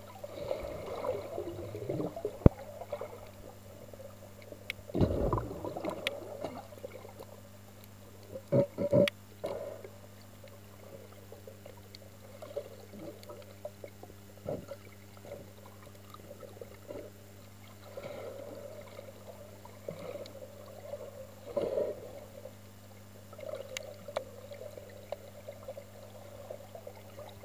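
Muffled water sound picked up by a camera held underwater just below the surface: sloshing and gurgling, with a steady low hum and scattered knocks and splashes, the loudest a pair about nine seconds in.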